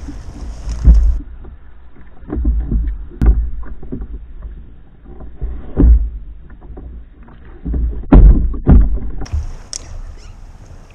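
Fishing kayak on choppy water: a steady wash of water noise broken by irregular low thumps and knocks, the loudest pair about eight seconds in.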